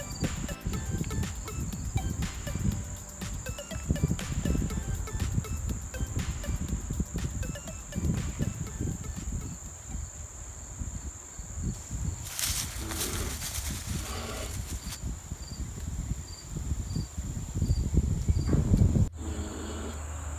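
Insects droning with a steady high buzz, joined at times by a faint, evenly repeating chirp, over an uneven low rumble. A burst of rustling comes about twelve seconds in.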